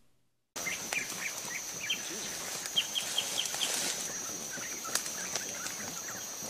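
Forest ambience: small birds chirping in short repeated notes, with a quick run of about six high chirps around three seconds in, over a steady high insect buzz. It starts after a brief moment of dead silence.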